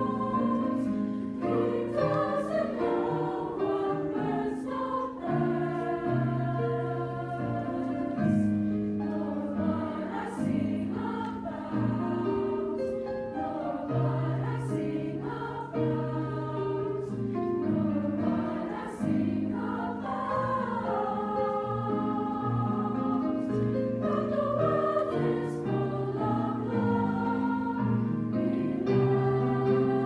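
A treble choir singing a slow choral piece in several parts, with held notes that shift every second or so, over piano accompaniment.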